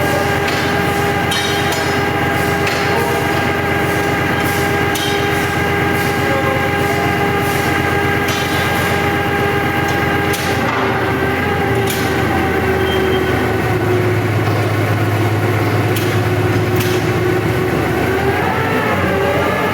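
Sawmill machinery running steadily under load, a constant whine over a low hum, with scattered sharp knocks.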